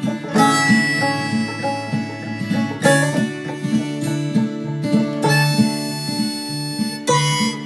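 Background music: an upbeat acoustic tune with plucked strings over a steady, regular bass line.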